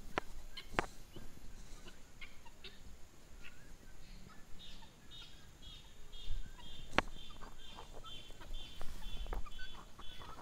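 Helmeted guineafowl calling: a few sharp, separate call notes, and from about halfway a run of high repeated notes, about three a second.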